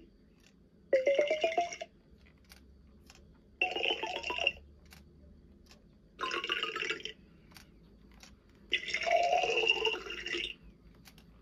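Fisher-Price interactive toy teapot's speaker playing four short electronic sound effects, each about a second long with gaps between, several rising in pitch.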